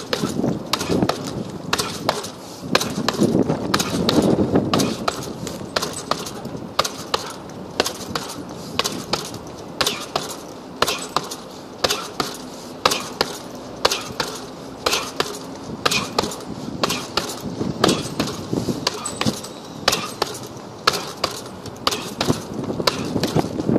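Boxing gloves punching a hanging heavy bag, a few sharp thuds every second in irregular combinations. A low rushing noise swells for a couple of seconds about four seconds in, and again later on.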